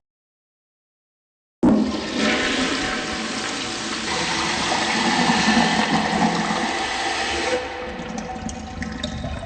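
Toilet flushing: a rush of water that starts abruptly about a second and a half in, runs for several seconds and eases off near the end.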